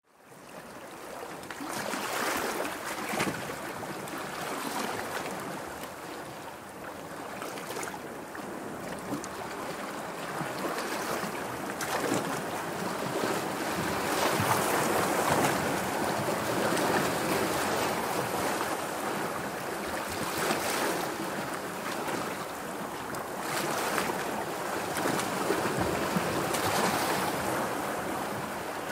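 Sea surf washing in: a rushing noise that fades in over the first second or so, then swells and ebbs every few seconds.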